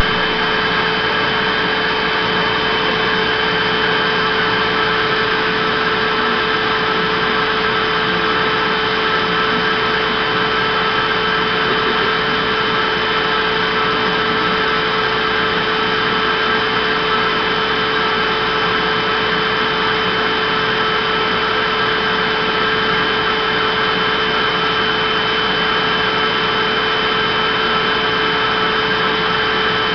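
Vacuum cleaner running steadily: a constant rushing hiss with an unchanging whine through it.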